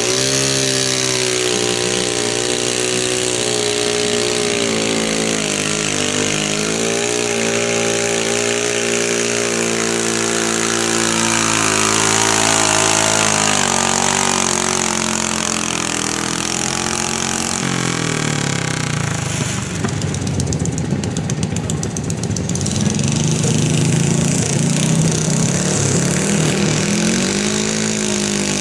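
Garden tractor engine running hard under load while pulling a weight-transfer sled, its pitch wavering as it sags and recovers. About two-thirds through it drops to a lower, rougher note, then climbs again near the end.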